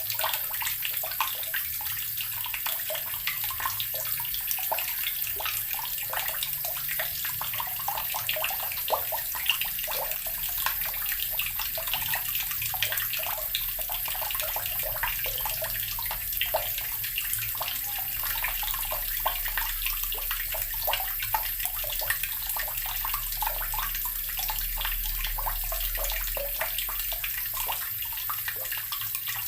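Water running steadily from a tap, splashing into a basin with a dense, even patter of small spatters.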